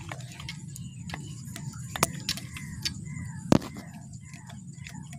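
Irregular sharp clicks and ticks, the loudest about three and a half seconds in, over a low steady rumble, with faint short chirps higher up.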